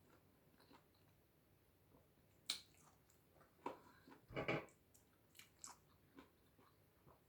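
Faint mouth sounds of someone eating mandarin orange segments: scattered wet smacks and clicks, the loudest about four and a half seconds in.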